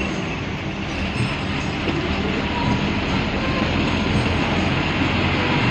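Steady engine and road rumble inside a moving air-conditioned bus.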